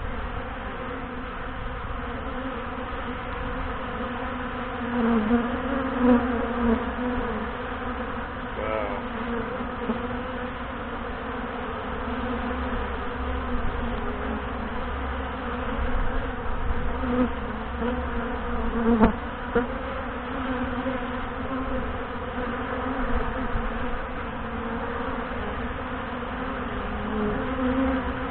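Steady, dense buzzing of a honey bee colony in heavy flight at the hive entrance, swelling now and then as single bees fly close past, most noticeably about 6 and 19 seconds in. The colony is so active that the beekeeper wonders whether it is getting ready to swarm.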